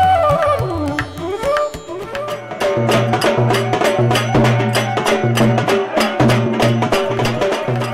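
Folk music. A gliding melody plays over drumming at first. From about three seconds in, a dhol and small hand cymbals take over with a fast, steady beat of drum strokes and cymbal clashes.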